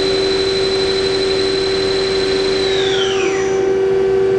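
Main spindle of a 2003 Takamaz X200 CNC turning-milling center running at 2000 RPM with a steady high whine, which falls in pitch from about two and a half seconds in as the spindle winds down. A steady machine hum continues underneath.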